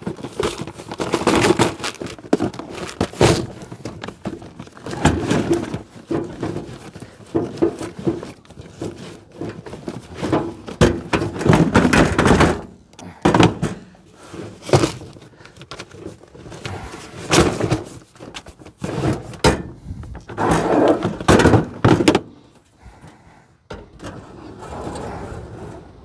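Fishing gear being handled and packed into a hard plastic tackle box: repeated knocks, clunks and rattles of plastic, with rustling in between.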